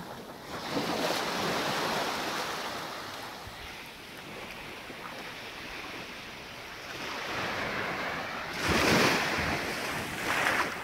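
Small sea waves lapping and washing onto a sandy beach, with wind buffeting the microphone. The wash swells and fades, with a louder surge about nine seconds in.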